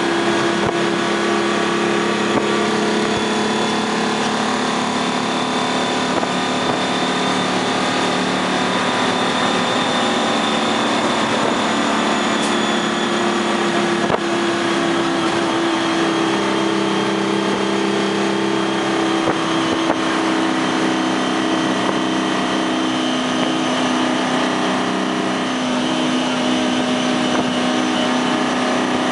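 In-cab sound of a 6V53 Detroit Diesel two-stroke V6 in a 1972 Dodge AT4-760 prime mover, running steadily under way at road speed. Its note shifts a little now and then, over road and wind noise.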